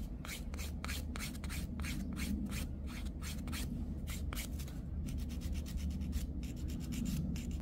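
Hand-held grit nail file rubbing in quick, short back-and-forth strokes across a fingernail, filing down the raised step at the edge of a silk wrap under cured base gel.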